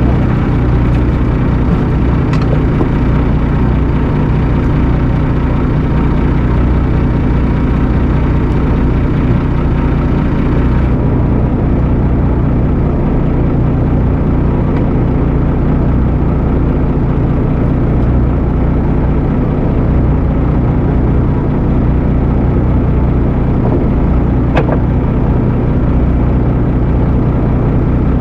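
Fishing boat's engine running steadily at a constant speed, a continuous low drone.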